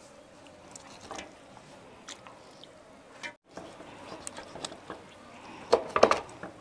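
Kitchen knife cutting and trimming a raw trevally on a wooden cutting board: faint wet squishing and small scraping clicks, with a few sharper clicks near the end.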